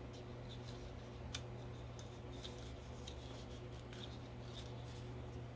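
Faint crinkles and light ticks of cardstock paper strips being slid and pushed into place by hand in a paper weave, over a steady low hum.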